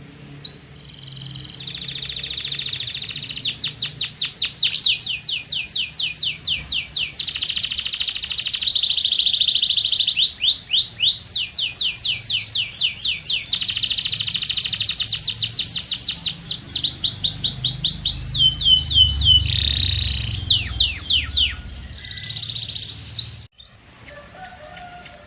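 Domestic canary singing a long song of fast trills: rolls of quickly repeated notes, many of them quick downward sweeps, each roll giving way to a new one every second or two. The song breaks off abruptly near the end.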